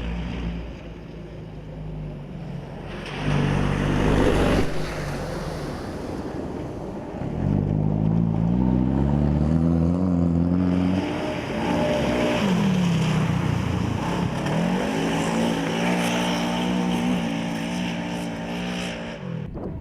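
Cross-country rally car's engine revving hard at speed, its pitch climbing through the revs, dropping sharply for a moment, then climbing again. A loud rush of noise comes about three to four seconds in.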